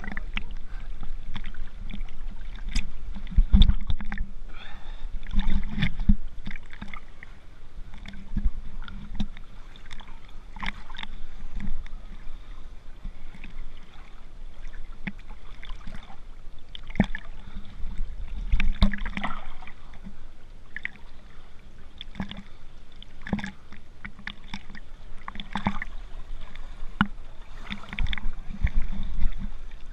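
Pool water lapping and sloshing against a waterproof camera held at the surface, with irregular small splashes and knocks.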